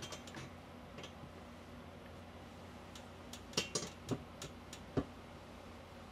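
Light clicks and knocks from ironing clothes, the iron and fabric being handled on the ironing board, with a cluster of louder knocks about three and a half to five seconds in over a faint low hum.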